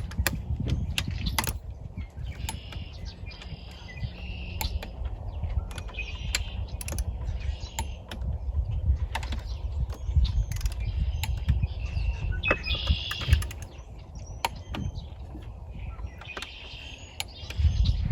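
Torque wrench working on outboard cylinder-head bolts: scattered sharp clicks and five short bouts of rapid ratchet ticking as each bolt is rechecked to 18–20 foot-pounds.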